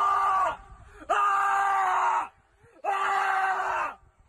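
Loud screams, each held for about a second at one steady pitch, repeated three times with short silent gaps between them.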